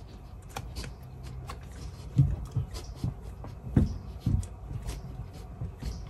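Hands drumming along on a desktop: scattered taps and a few heavier low thumps in pairs, the loudest about two seconds and four seconds in.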